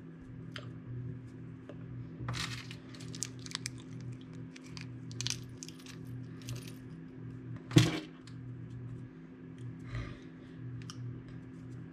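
Light metallic clinks and clicks, scattered and irregular, over a steady low hum, with one louder knock a little before the eight-second mark.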